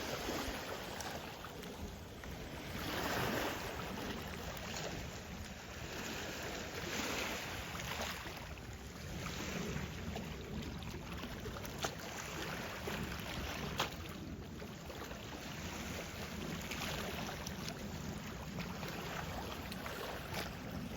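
Lake water lapping and splashing in slow swells, with wind on the microphone and two sharp clicks about twelve and fourteen seconds in.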